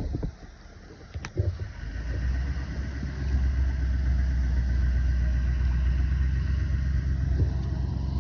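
An engine running with a low, steady drone that builds up over the first three seconds and then holds.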